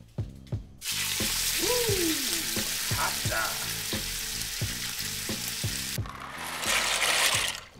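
Food sizzling in a hot pan on the stove, starting about a second in, with a louder burst of sizzling near the end that cuts off suddenly. Music with a steady low beat plays underneath.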